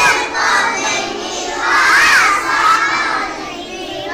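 Many children's voices shouting together in a room, loud and continuous, with high voices rising and falling over one another.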